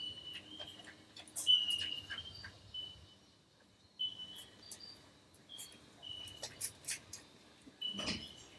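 Three-week-old toy cavoodle puppies squeaking and whimpering in many short, high-pitched cries, with small clicks and rustles between them and a louder, fuller cry or scuffle near the end.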